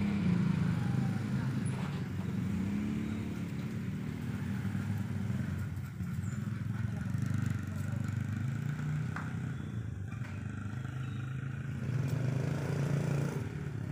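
Low, steady hum of a running engine, a little louder about a second in and again near the end.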